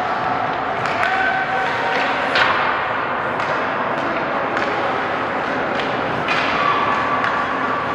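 Ice hockey play in a rink: scattered sharp clacks and thuds of sticks and puck against the ice and boards, the loudest about two and a half seconds in, over a steady echoing din of spectators' voices.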